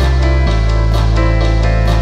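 Background music with a steady beat and sustained bass notes; the bass shifts to a new note about half a second in.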